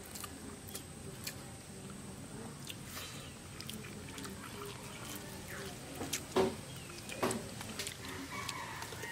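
People eating chicken curry with their hands: soft chewing with a few scattered wet lip smacks and clicks, the sharpest about six seconds in, over a faint low background murmur.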